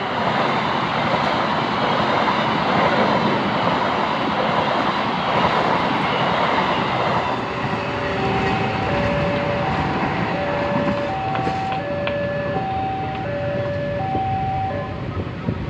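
A train passes close by, a dense rushing and rumbling of wheels on rail that eases after about seven seconds. From about halfway through, an electronic warning alarm sounds, alternating steadily between two tones, each held under a second.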